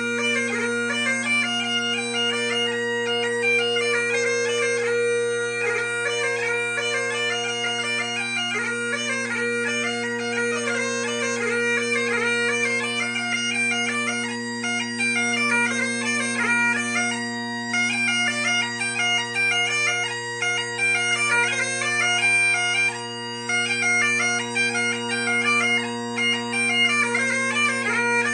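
3D-printed bagpipes with three drones playing a tune. The drones hold a steady low hum while the chanter moves quickly between notes above it.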